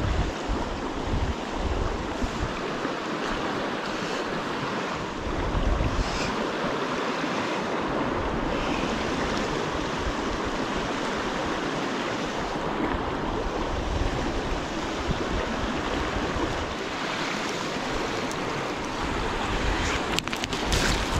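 Fast river water rushing steadily over rocks in a riffle, with wind buffeting the microphone now and then as low rumbles.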